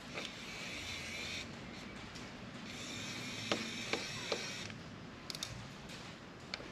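Kaiweets ES20 cordless electric screwdriver running in two short bursts, a second or two each, backing small screws out of a hard drive's circuit board. There are a few light clicks during the second burst.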